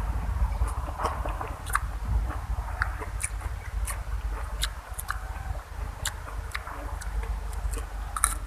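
A person chewing and biting food close to the microphone, with irregular sharp mouth clicks.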